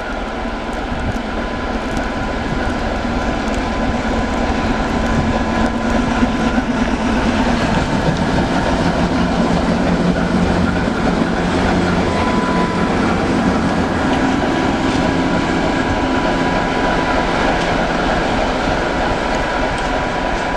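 ČKD ChME3 diesel shunting locomotive running as it moves off, its six-cylinder diesel engine working under load. The engine sound rises a few seconds in and then holds steady.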